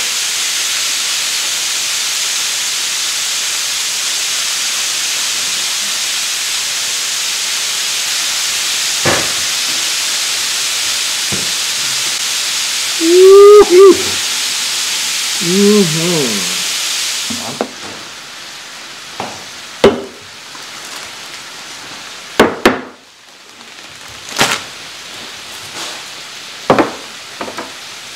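Thin slices of raw beef sizzling on a hot electric griddle as they are turned with metal tongs, a steady hiss that drops much fainter about two-thirds of the way through. In the middle a man's wordless voice sounds twice, the loudest moments, and near the end there are several sharp knocks and clicks of things set down on the table.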